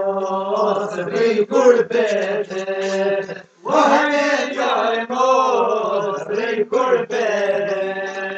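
Men singing an Albanian folk song together in a chant-like style to the qifteli, a two-string long-necked lute, with a brief break about three and a half seconds in.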